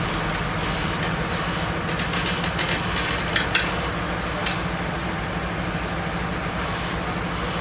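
Sheet-piling rig running with a steady mechanical hum, with a few faint knocks between about two and four and a half seconds in.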